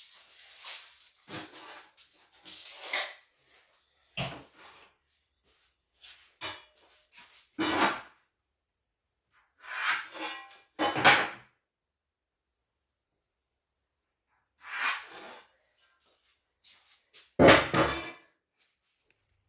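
A string of separate knocks and scrapes of wooden boards being handled and set down, with silence between them; the heaviest knock comes near the end.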